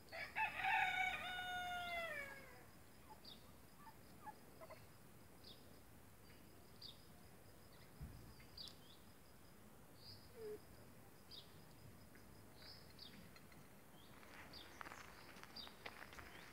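A rooster crows once, a long held call of about two seconds that falls away at the end. After it a small bird chirps faintly about once a second, and near the end steps crunch on gravel.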